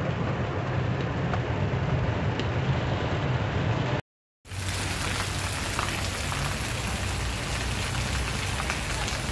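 Heavy rain falling steadily, heard first from inside a moving car, drumming on the roof and windshield over a low, steady hum. It breaks off in a brief silence about four seconds in, then heavy rain is heard again pouring onto a street and pavement.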